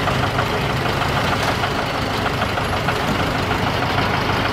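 A vehicle's engine running steadily at low speed in slow traffic, heard from inside the cabin through a dashcam microphone, along with even road and cabin noise.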